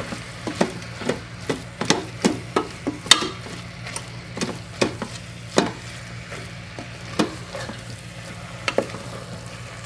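A wooden spoon stirring and tossing spaghetti squash strands in a stainless steel Instant Pot inner pot, knocking and scraping against the pot at irregular intervals over a faint sizzle of butter and oil on sauté. The knocks come more sparsely in the second half.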